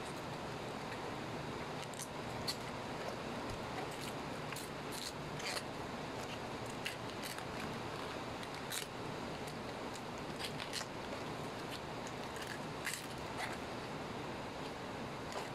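Crisp leaves being peeled and torn off a head of green cabbage by hand: irregular sharp snaps and crackles over a steady hiss.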